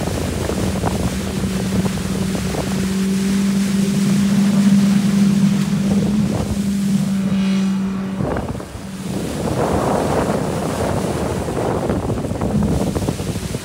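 Outboard motor of a Zodiac inflatable boat running steadily at speed, with water rushing past and wind on the microphone. About eight and a half seconds in, the engine tone drops away and the wind and water rush take over.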